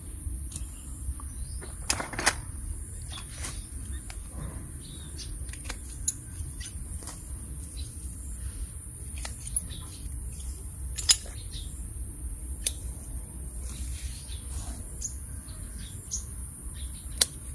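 Pruning shears snipping small branches off a loa (cluster fig) tree: a handful of sharp snips at irregular intervals, the loudest about eleven seconds in, as unwanted branches are cut away. A steady high drone of insects runs underneath.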